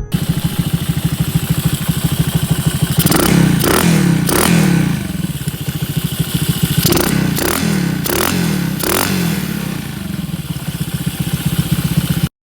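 Super Cub's Chinese YD28 single-cylinder four-stroke engine idling, with about seven quick throttle blips in two groups, each revving up and dropping straight back.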